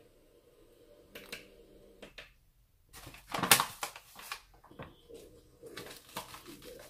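Paper flour bag crinkling and rustling as it is handled and tipped over a glass mixing bowl: a run of irregular crackles, loudest a little past the middle.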